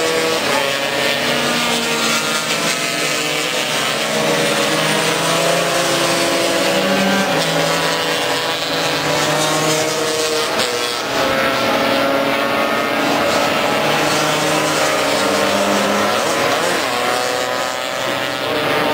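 Engines of several two-stroke racing scooters running hard at high revs. Their pitches overlap and rise and fall in steps with throttle and gear changes.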